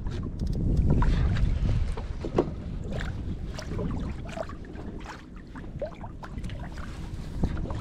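Wind buffeting the microphone and water lapping and gurgling against a kayak hull, with scattered small clicks and knocks as a fishing reel is handled. The wind rumble is strongest in the first couple of seconds.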